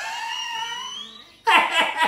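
Electronic sound effects from a replica Ghostbusters Neutrona wand: a rising power-up whine, then, about a second and a half in, a rapid pulsing firing effect at about four pulses a second.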